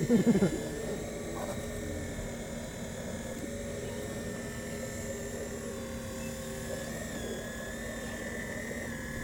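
Hydraulic pump of a radio-controlled model CAT excavator whining steadily while the boom and bucket dig, its pitch sagging briefly under load about three-quarters of the way through.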